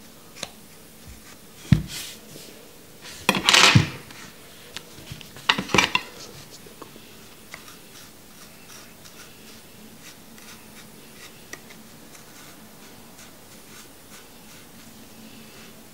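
Hands working on a vape box mod and its cotton wick: small clicks and taps, a sharp knock about two seconds in, and two short noisy rustling bursts around four and six seconds in, then only faint light fiddling.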